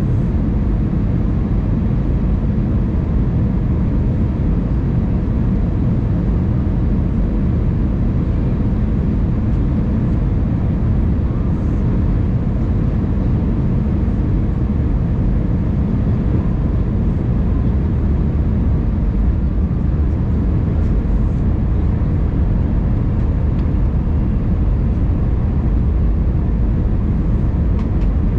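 Airbus A319 cabin noise heard from a window seat over the wing: a steady rumble of engines and airflow during descent, with no change in level.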